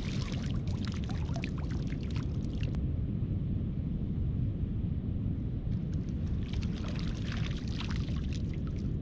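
Shallow water splashing and sloshing as a person wades and works a prawn scoop net through it, in two spells: the first few seconds, and again from about six seconds in. A steady low rumble runs underneath.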